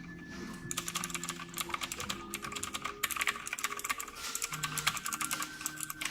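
Rapid, continuous typing on a Digital Alliance K1 Meca TKL mechanical keyboard with Outemu blue switches, giving a dense run of clicky keystrokes.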